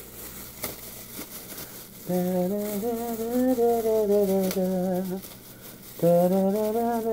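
A man humming a wordless tune in two long phrases, the first starting about two seconds in and the second about six seconds in. A few faint rustles and clicks come before the humming.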